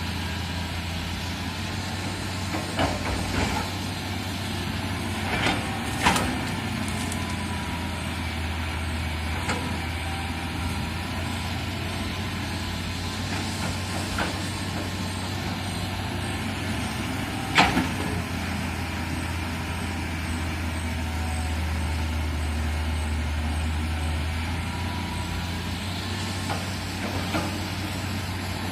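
Heavy excavator diesel engine running steadily under load, with a few sharp knocks or clanks scattered through, the loudest two about a fifth of the way in and near the middle.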